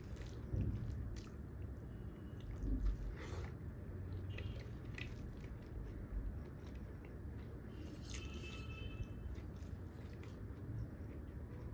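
A person chewing and biting food close to the microphone, with many small wet mouth clicks and crackles throughout.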